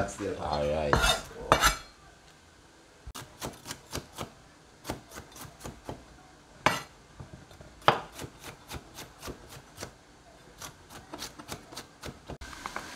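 Chef's knife chopping green bell pepper on a plastic cutting board: a run of sharp, uneven knife taps, about two or three a second, starting a few seconds in.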